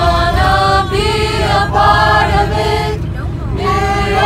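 A group of voices singing together in harmony, in held notes with short breaks between phrases, over a steady low rumble.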